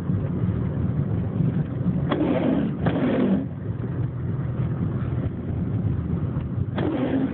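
Tornado-force wind buffeting a car over the steady low rumble of its running engine, with loud gusts surging against it about two seconds in, again a second later, and near the end.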